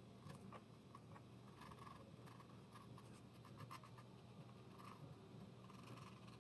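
Faint scratching and small ticks of a hand tool worked over a repair in a ceramic floor tile, in short irregular strokes.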